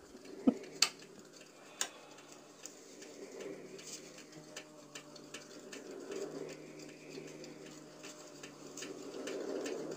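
Quiet sci-fi horror film soundtrack: a low steady hum with scattered soft ticks and clicks, swelling slightly near the end.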